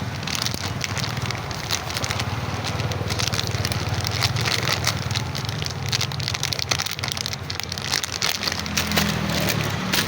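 Food sizzling and crackling as it cooks, a dense irregular crackle over a steady low hum.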